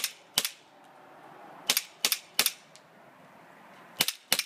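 KWA ATP gas blowback airsoft pistol firing seven shots in three quick strings (two, then three, then two), about a third of a second apart. Each shot is a sharp crack as the gas-driven slide cycles back and forward.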